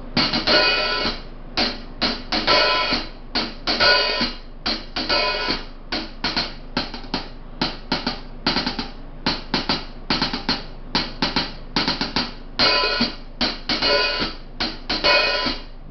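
A pair of 14-inch hi-hat cymbals played with drumsticks in an uneven pattern of short closed strikes and longer open washes that ring for up to about a second, several strikes a second.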